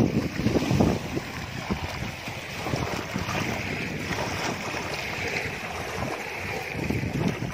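Small waves lapping and breaking over rocks and pebbles at a lake's edge, a steady splashing wash. Wind buffets the microphone in low rumbling gusts, strongest in the first second and again near the end.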